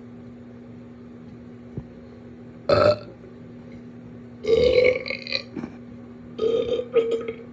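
A person burping loudly three times: a short burp about three seconds in, then two longer, ragged burps.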